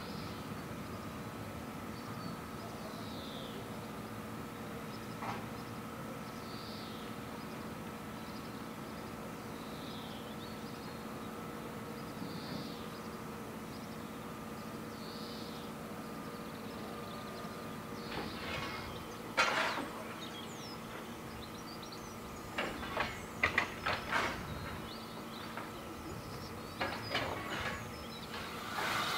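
LSWR S15 4-6-0 steam locomotive standing at rest, simmering with a steady hiss and low hum. Faint short falling chirps recur every few seconds in the first half, and a scattering of sharp knocks and bangs comes about two-thirds of the way through.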